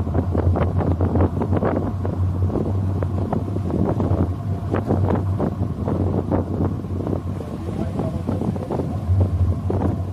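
Wind buffeting the microphone in irregular gusts over a steady low hum.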